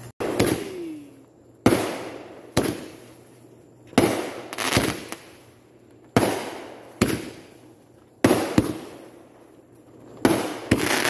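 Aerial fireworks exploding one after another, about a dozen sharp bangs roughly a second apart, each trailing off in a fading echo.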